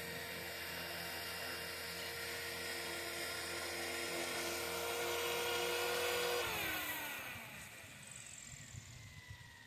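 Radio-controlled scale Bell 206 Jet Ranger model helicopter's motor and rotor whining at a steady pitch, then winding down with a falling pitch after about six seconds as it is shut down after landing.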